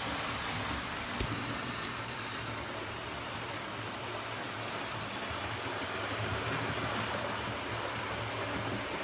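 Hornby OO gauge model locomotives (Stephenson's Rocket and the A4 Bittern with coaches) running round the layout: a steady whirr of small motors and wheels rumbling on the track, with a single click about a second in.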